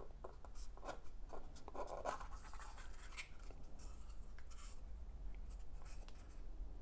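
Fingers handling a small cardboard jewelry box and lifting off its lid: faint scratchy rubbing and small light taps of card on card and skin, scattered through.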